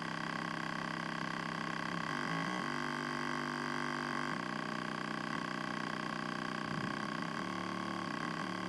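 Small subwoofer being overdriven with a steady low test tone to try to burn it out; the tone is buzzy, full of overtones, and steps to a slightly different pitch several times.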